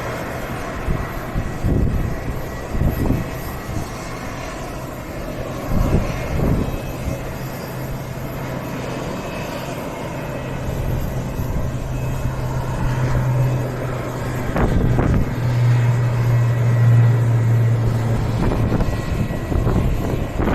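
Twin-turboprop ATR 42-600 airliner's engines and propellers running, a steady low propeller hum that swells from about halfway through and is loudest near the end.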